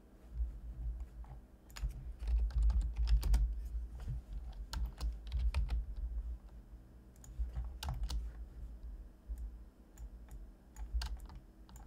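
Computer keyboard keys clicking in irregular runs of keystrokes, with a low rumble underneath.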